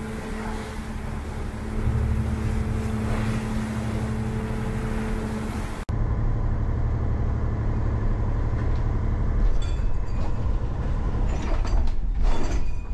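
Steady low drone of a motor yacht's diesel engine heard from inside the wheelhouse, under the rushing hiss of water and wind as the boat pushes through rough seas. The sound changes at a cut about six seconds in, the hiss becoming duller, and a few short thumps come near the end.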